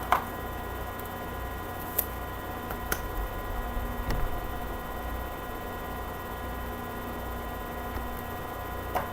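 Steady electrical mains hum, with a few brief clicks and light rustling scattered through it.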